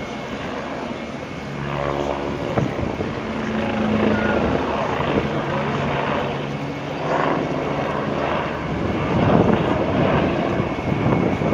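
A helicopter's rotor and engine running, a steady drone of several held tones over a constant rushing noise.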